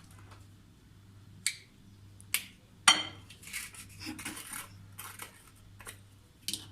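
Kitchen dishes and utensils clinking and knocking: a string of sharp clinks, the loudest about three seconds in with a short ring, followed by a run of clattering.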